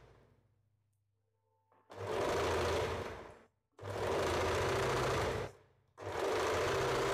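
Electric household sewing machine stitching in three runs of about a second and a half each, starting about two seconds in, with short stops between them.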